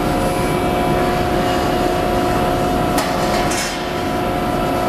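Horn HMT2 CNC hydraulic tube bender's hydraulic power unit running with a steady hum and whine, with one sharp metallic click about three seconds in and a brief hiss just after.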